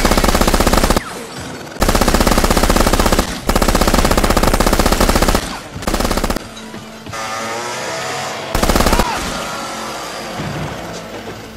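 Automatic machine-gun fire sound effects from the iGun Pro app: five long bursts of rapid shots, the longest nearly two seconds, with quieter gaps between them.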